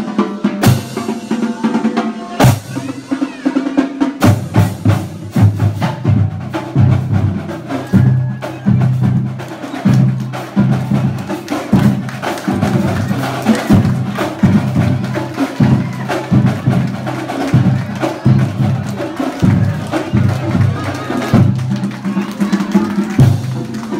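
Marching drumline playing a fast, steady cadence, with tuned marching bass drums booming beneath quicker drum strokes.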